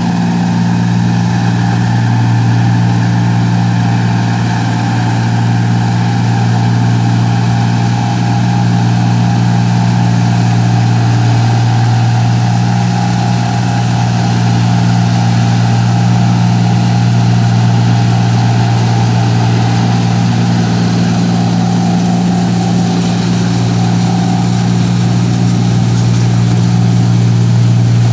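Engine of a rice machine working in the field, running steadily at one constant speed with an unchanging low pitch.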